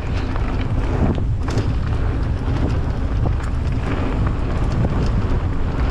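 Wind buffeting the microphone and tyres rumbling over a dirt trail as a Ragley Big Al aluminium hardtail mountain bike descends at speed, with frequent small clicks and rattles from the bike, which the rider puts down to the internally routed cables banging inside the frame.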